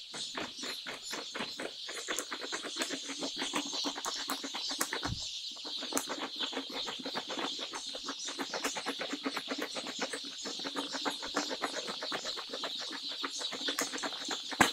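Hundreds of young broiler chicks in a brooder, peeping continuously in a dense, overlapping chorus.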